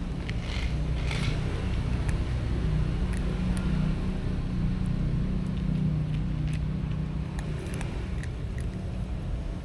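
An engine running steadily with a low hum, with scattered small clicks over it.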